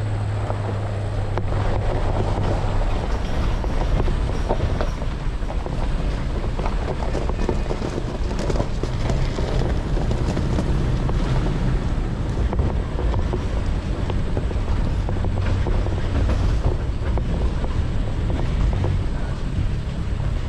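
Truck driving slowly over gravel and grass: a steady low engine and tyre rumble, with wind buffeting a microphone mounted on the hood.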